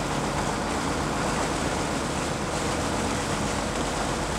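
Boat engine running steadily, with a low hum under a constant wash of wind and water noise.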